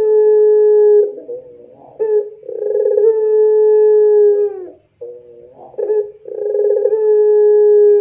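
Puter pelung (long-calling domestic ringneck dove) giving its drawn-out call three times. Each call is a steady held note of about two seconds that drops away at the end, with short broken coos in the gaps between them.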